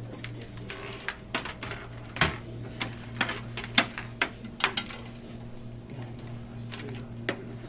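Irregular plastic clicks and knocks of keyboard and mouse plugs being handled and pushed into a desktop PC's ports, a dozen or so, with the loudest a little over two seconds in and near four seconds in.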